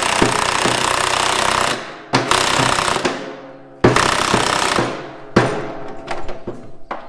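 Impact wrench tightening bolts: it hammers steadily for nearly two seconds, then is triggered again in several short bursts, each trailing off as it spins down.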